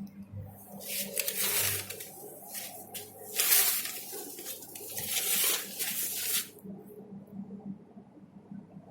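Spray paint hissing onto a car body panel in three bursts of about a second each, the middle one loudest.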